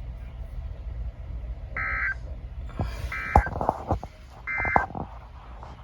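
Emergency Alert System SAME data tones: three short, harsh digital bursts about a second apart, the end-of-message signal that closes the alert. A steady low hum runs underneath, with a few clicks between the bursts.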